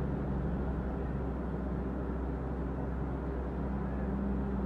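Steady low engine rumble under a constant outdoor background noise.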